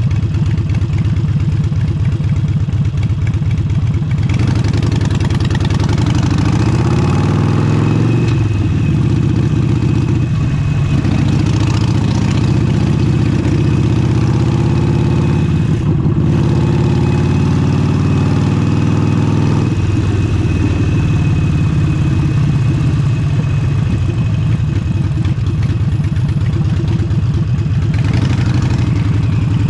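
Harley-Davidson Forty-Eight's air-cooled 1200 cc V-twin running through a Vance & Hines exhaust while being ridden. About four seconds in the engine note climbs and falls with throttle and gear changes, over a hiss of wind on the microphone. A little past the middle it settles back to a steadier, lower running note.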